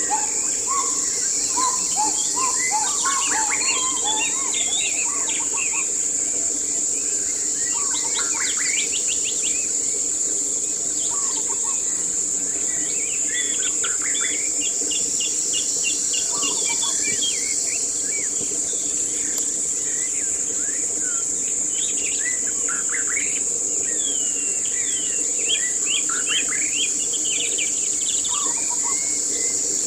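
Several wild birds chirping and singing in short phrases of quick notes, over a steady high-pitched insect drone, like crickets or cicadas, that never lets up.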